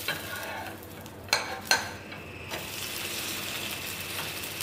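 Steel spatula scraping under and turning a dosa on a hot non-stick tawa, with two sharp clicks a little over a second in. From about halfway through, the flipped dosa sizzles steadily on the hot pan.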